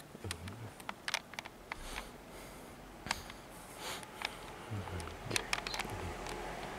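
Faint handling noise: scattered sharp clicks and a few soft low thumps. A low hum sets in about two seconds in.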